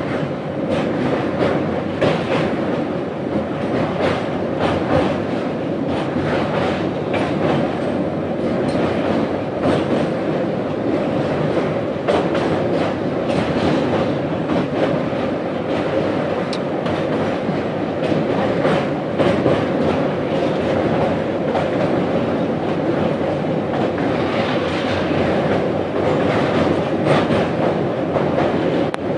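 Express passenger train running over a steel truss bridge, heard from aboard a coach: a steady loud rumble of wheels on rails with frequent clicks and clacks as the wheels cross rail joints.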